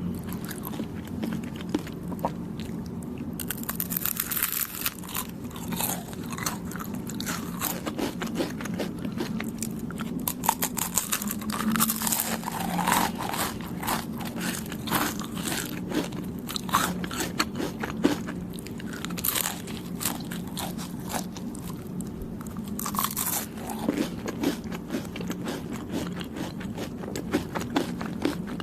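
Close-up eating sounds of someone biting and chewing soft, chewy Thai desserts: a steady stream of sticky mouth clicks and smacks, with a few louder bites.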